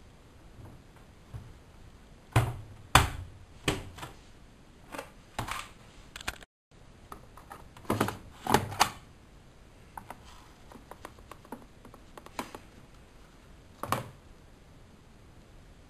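Irregular sharp clicks and knocks from handling a Studio WM26AAA washing machine, in two denser clusters with scattered single clicks between.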